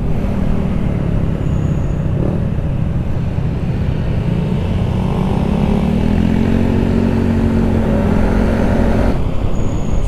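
Motor scooter engine running at cruising speed under heavy wind rumble on the microphone. The engine note rises and falls slightly about halfway through.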